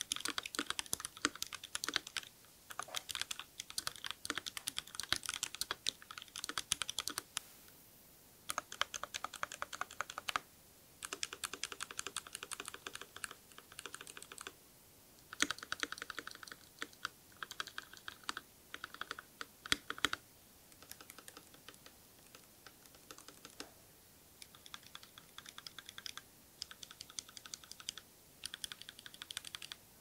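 Keychron K6 mechanical keyboard typing, with linear Gateron Ink Black V2 switches that are lubed and filmed, PBT keycaps and a foam mod inside the case, for a deep, muted click on each keystroke. The keys go in fast runs broken by short pauses, and there are stretches of quick, evenly repeated presses on the spacebar.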